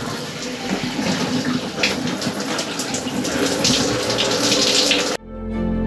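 Shower water spraying from a handheld showerhead onto a person's head and shoulders in a small camper-van shower cubicle, a steady splattering hiss. It cuts off abruptly about five seconds in, giving way to soft background music.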